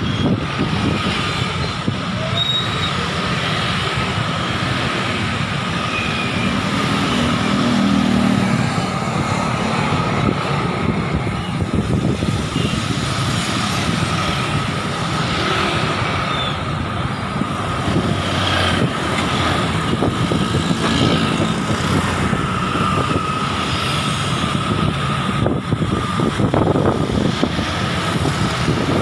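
Roadside street traffic in a slow jam: cars, minibuses, trucks and many motorcycle engines running and passing close by. A thin steady whine sits under the traffic noise.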